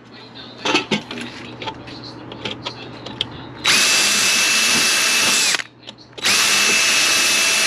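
Electric drill running in two steady bursts of about two seconds each, with a constant whine, boring a hole through sheet metal to enlarge it for a 1/8-inch rivet. A few light handling clicks come before the first burst.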